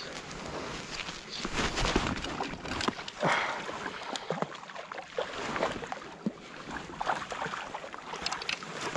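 Water splashing and lapping against an inflatable float tube in short, irregular splashes.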